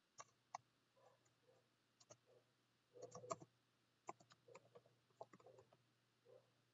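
Faint keystrokes on a computer keyboard, a few scattered clicks with a small cluster about three seconds in, over a faint steady hum.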